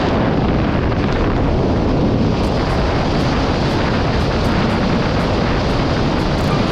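Steady loud roar of wind and machinery noise aboard a ship, with no horn sounding. Faint clicks high up, a few a second, join from about two and a half seconds in.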